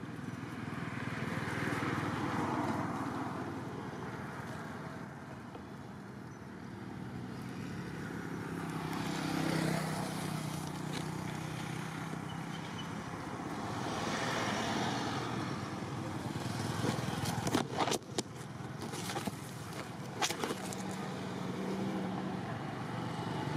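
Road traffic passing at a distance: vehicles swell in and fade away several times, some with a low engine hum. A few sharp clicks and rustles come near the end.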